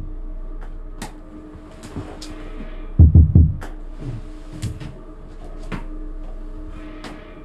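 Heavy, dull knocks: a quick run of about three deep thuds about three seconds in, with fainter knocks and sharp clicks scattered around them, over a steady low hum.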